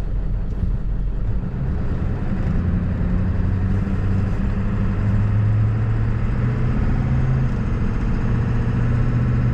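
1997 Ford F-350's 7.3-litre Power Stroke turbo-diesel V8 pulling the truck along, heard from inside the cab. Its low drone climbs a little in pitch over the first few seconds, its note changes about three-quarters of the way through, and then it holds steady.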